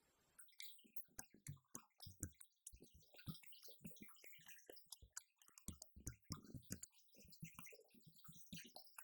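Electronic drum kit being played: a fast, irregular run of drum strikes that starts about half a second in.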